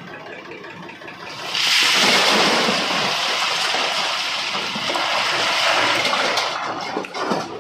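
A loud rushing, pouring noise that starts about a second and a half in and stops near the end, typical of a load of mud sliding out of a backhoe loader's bucket into a tractor trolley, over the machine's running engine.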